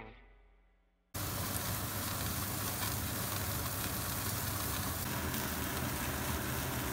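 Tomahawk steaks searing on a gas barbecue: a steady hiss of sizzling meat and the lit burners, with fat flaring into flames. It cuts in suddenly about a second in, as the tail of a guitar chord dies away.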